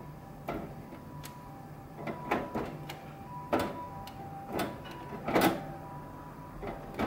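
A budgerigar's beak biting and tearing at fresh pea shoots, giving short crisp crunching clicks at irregular intervals, the loudest about five and a half seconds in.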